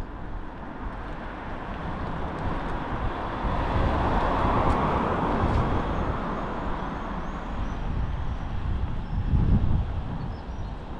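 Street traffic: a vehicle passing close, its noise swelling to a peak about four to five seconds in and then fading, with another low rumble near the end.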